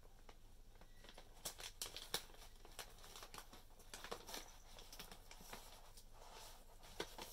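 Faint, intermittent crinkling of a plastic packet of bonito flakes being handled, with scattered small clicks.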